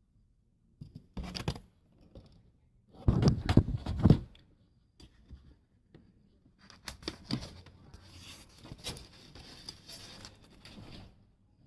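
Hot knife cutting a hole through a metallic silver tray and foam board: scraping, tearing and crinkling in irregular bursts, loudest about three to four seconds in, then a longer stretch of scraping with sharp clicks.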